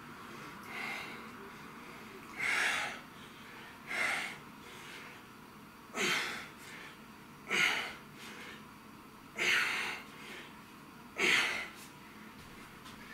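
A man exhaling forcefully with each rep of dumbbell curls, working hard: a short, sharp breath out every one and a half to two seconds, six strong ones after a fainter first.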